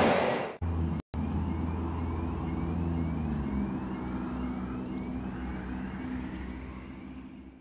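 A passing freight train's rumble fades out in the first half second. Then a level-crossing warning signal sounds: a short rising electronic tone repeating about twice a second over a steady low engine hum, slowly fading toward the end.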